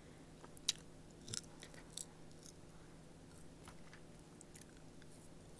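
Close-miked chewing of a crunchy snack on a wired earbud microphone held near the mouth. A few sharp crunches come in the first two seconds, then softer chewing.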